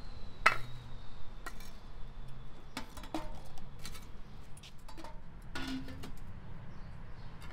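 Metal clinks and knocks from a charcoal-fired samovar being loaded with charcoal and fitted with its chimney pipe, about half a dozen separate strikes, one a little before the end ringing briefly.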